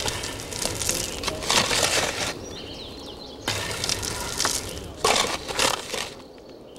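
Footsteps in sandals crunching over loose stones and gravel, several slow steps.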